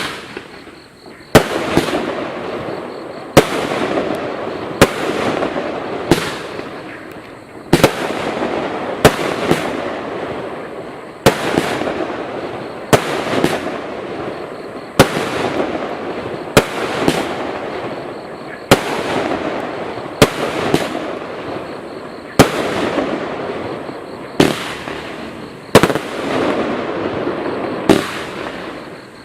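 Total FX Caged Jaguar firework cake firing shot after shot, about twenty in all, roughly one every second and a half. Each sharp report is followed by a few seconds of crackling that dies away.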